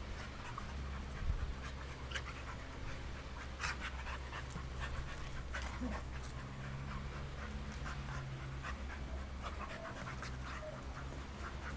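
Two dogs play-wrestling, panting hard, with short scuffling and clicking noises as they grapple and tumble on grass, over a low steady rumble.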